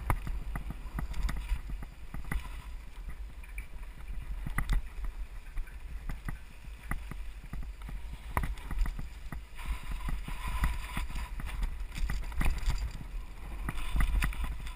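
Wind rumble on the microphone while riding a mountain bike, with frequent clicks and knocks as the bike rattles over the rocky singletrack.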